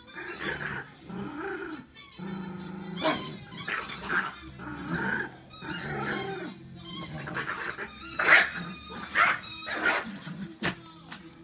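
A Yorkshire terrier and a young Weimaraner play-fighting, growling with repeated high-pitched yelps and barks; the sharpest barks come about eight and nine seconds in. Music plays underneath.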